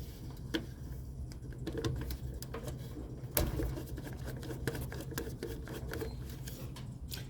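Newly fitted AC compressor contactor humming under power, with irregular sharp clicks of intermittent chatter, the loudest about three and a half seconds in. The chatter persists though the contactor is brand new, which the technician takes as a sign that something else is wrong.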